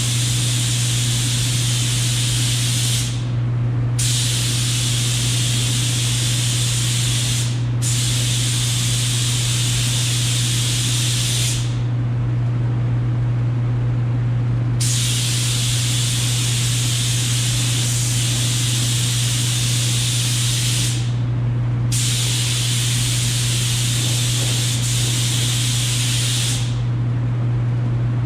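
Compressed-air paint spray gun hissing as it lays a primer coat on a tractor hood: five long passes of a few seconds each, with short breaks between. Under it runs a steady low hum.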